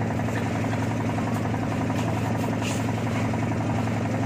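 A motor boat's engine running at a steady speed: a constant low drone with no change in pitch.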